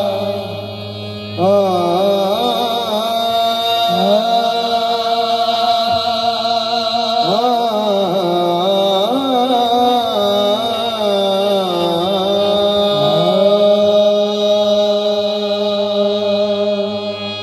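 Devotional music: a singer's wordless, gliding melodic line, bending up and down in pitch, over a steady held drone, opening a Sufi devotional song.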